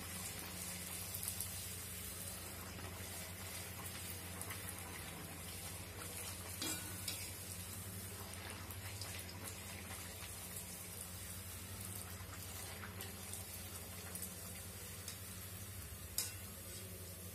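Pathir peni dough deep-frying over low heat in oil in a steel kadai: a steady sizzle, with a few light clicks of a wire-mesh skimmer against the pan.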